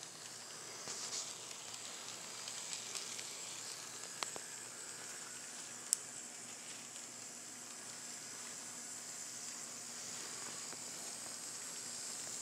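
N scale model passenger train running on track: a faint steady hiss of the motor and wheels rolling on the rails, with two sharp clicks, about four and six seconds in.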